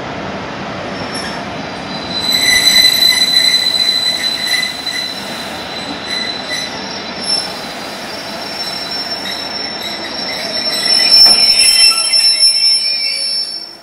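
Wheels of slow-moving Pullman coaches squealing as they roll round a curved platform track: high, steady squealing tones over the rolling of the wheels. The squeal is loudest in two spells, from about two seconds in and again from about ten seconds in.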